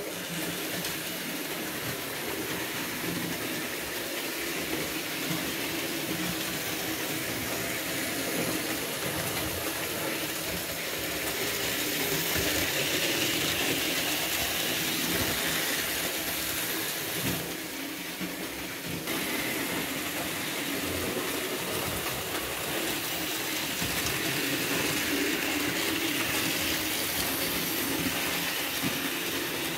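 Electric model trains running on metal layout track: a steady whirring of motors and rattle of wheels on rails. It grows louder as a black steam locomotive with a tank wagon passes close by about halfway through, dips briefly, then rises again.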